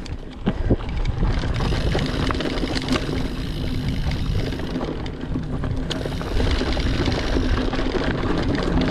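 Mountain bike riding over a dirt and dry-leaf trail: a steady rush of tyre noise and wind buffeting the microphone, with scattered clicks and rattles from the bike over bumps. It grows louder about a second in.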